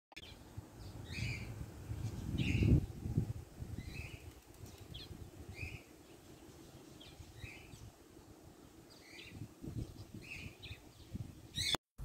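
A bird calling over and over, a short two-part note every second or so, over a low rumble that swells about two and a half seconds in.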